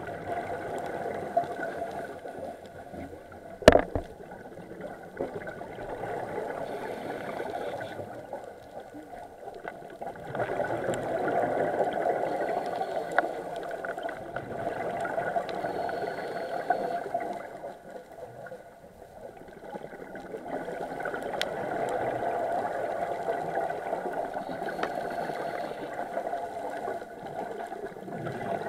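Underwater sound of a scuba diver breathing through a regulator, the exhaled bubbles gurgling in long swells several seconds apart with quieter gaps between. One sharp click about four seconds in.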